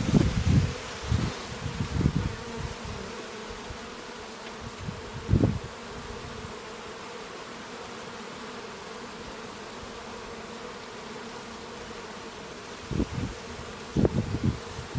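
Many bees buzzing in a steady hum. Brief low rumbling bursts come and go over it in the first few seconds, once around the middle, and again near the end.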